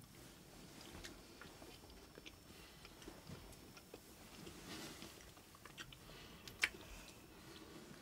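People eating at a table: faint chewing and small clicks of hands and dishes, with one sharper click about two-thirds of the way through.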